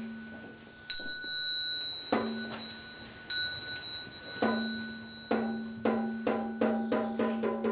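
Buddhist ritual-style percussion: a bright bell struck twice, about two and a half seconds apart, over low drum strokes that speed up into a quickening roll in the second half.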